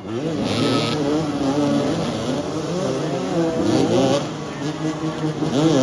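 Several motoball motorcycles revving and accelerating together, their overlapping engine notes repeatedly rising and falling in pitch.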